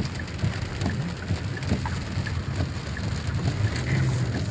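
Inside a car driving in the rain: a steady low road and engine rumble, with rain pattering on the car.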